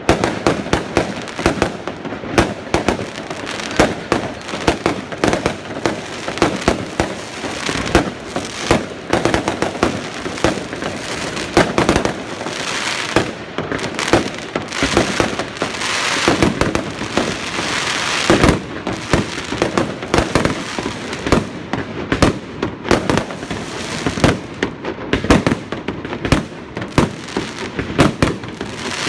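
Fireworks going off in a fast, unbroken string of bangs and crackles, several every second, with a thicker spell of crackling about halfway through.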